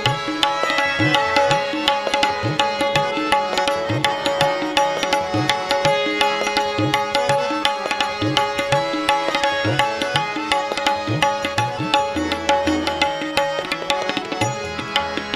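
Instrumental interlude of a Marathi abhang: harmonium and violin hold the melody over a steady tabla rhythm, many of the bass drum's strokes sliding up in pitch.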